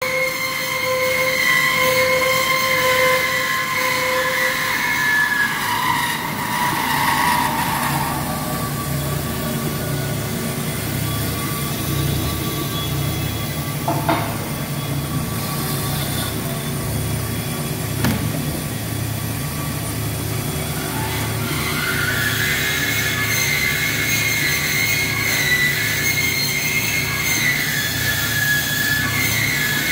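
COSEN C-520-NC industrial band saw cutting through a bundle of shafting: a steady low motor hum under a high, ringing whine from the blade. The whine fades for a stretch in the middle and comes back strongly later, with two short clicks about halfway through.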